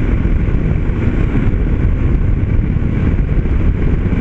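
Yamaha Ténéré 250's single-cylinder engine running steadily at a cruise of about 90 km/h, mixed with a constant low rush of wind on the microphone.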